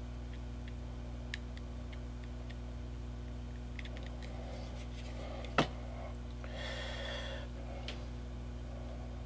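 Small clicks and taps as wooden model parts are handled, a sharp knock about halfway through as a small glue bottle is set down on a tile board, then about a second of hissing from an aerosol can of super-glue accelerator. A steady low hum underneath.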